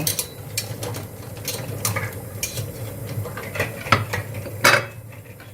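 Glass canning jars and metal utensils clinking and knocking as they are handled, taken from sterilising in boiling water, with a louder clink near the end over a steady low hum.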